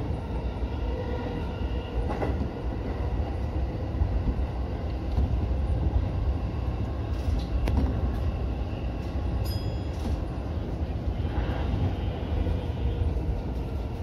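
E231-series electric commuter train running on the rails, heard from inside the driver's cab: a steady low rumble of wheels on track, with a few sharp clicks and a brief high tone about two-thirds through, as it nears a station.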